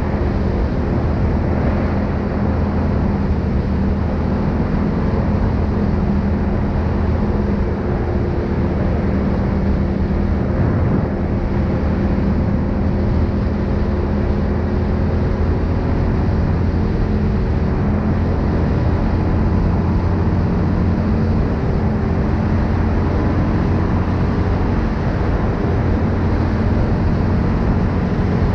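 Linhai 500 ATV's single-cylinder four-stroke engine running steadily while the quad cruises along a paved road, a constant drone with only slight drift in pitch.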